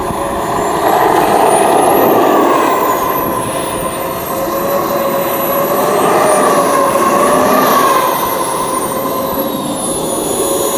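JetCat model turbine engine of a Feibao F-5E Tiger II RC jet running at low power while the model taxis. Its high whine rises and falls twice as the throttle is blipped, once about two seconds in and again around six to eight seconds, with the rushing exhaust noise swelling each time.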